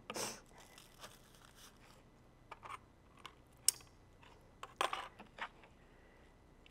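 Scattered light taps, clicks and rustles of hands at work: raw chicken drumsticks being rolled in a bowl of dry rub and set down on parchment paper, with one sharp click a little past halfway and a short cluster of taps about five seconds in.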